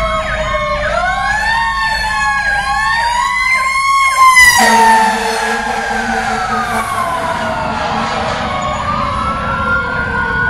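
Fire engine sirens: a wail sweeping slowly up and down with a fast yelp over it, loudest about four seconds in. After that the yelp stops and the wail slides slowly down in pitch over several seconds.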